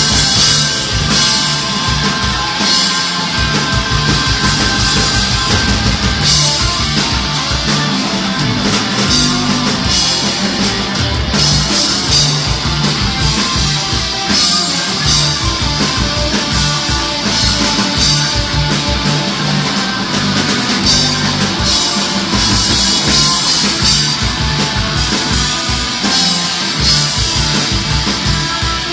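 Live rock band playing an instrumental passage with no singing: guitar over a steady bass and drum beat.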